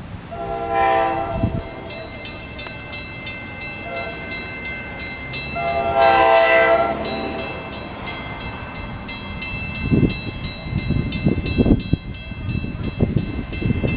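K5LA air horn on NJ Transit ALP-45DP locomotive 4530 sounding for a grade crossing: a blast about a second in, a short faint one around four seconds, and a longer one about six seconds in. A rapid, even ringing, likely the crossing bell, runs from about two seconds in. Wind buffets the microphone in the last few seconds.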